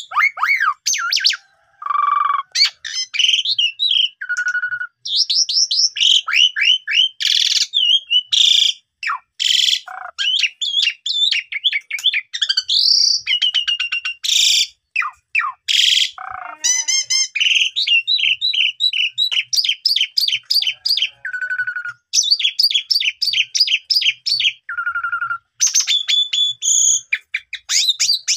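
Asian pied starling (jalak suren) in full song: a long, fast stream of varied whistled phrases and trills mixed with short harsh rasping notes, with only brief pauses.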